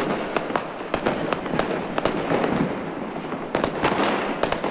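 Many firecrackers going off at once: a dense crackling din with frequent sharp bangs, coming thicker in a run of louder cracks near the end.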